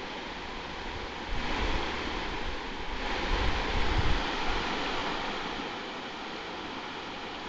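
Shallow river water rushing steadily over rocks in a riffle. From about a second in to about four and a half seconds, a low rumble on the microphone swells over it, then fades.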